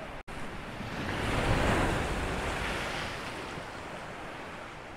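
Sea waves breaking against a rocky, boulder-lined shore: one wave surges about a second in and washes back over the next few seconds, with wind buffeting the microphone.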